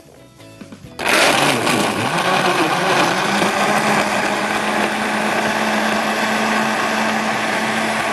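Countertop blender switched on about a second in and running at full speed, crushing ice and chocolate biscuits in milk for a milkshake. It is loudest in its first couple of seconds, then settles into a steady whir with a constant motor hum.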